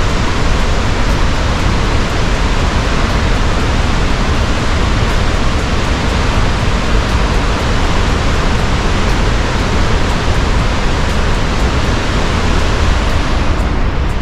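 White River Falls, a 90-foot waterfall, pouring with a loud, steady rush of water.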